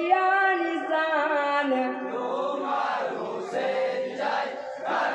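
A man sings a line of a Bengali marsiya, a Muharram lament, with long held notes. About two seconds in, a group of men joins with a loud chant in unison, rising in repeated surges.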